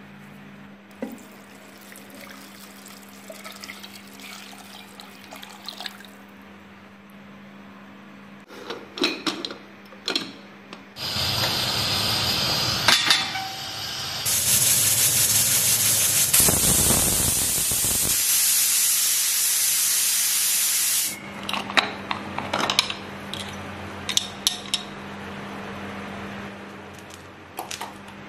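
Cooking sounds: pots and utensils clinking over a faint steady hum, with a loud, steady rushing hiss lasting about ten seconds in the middle.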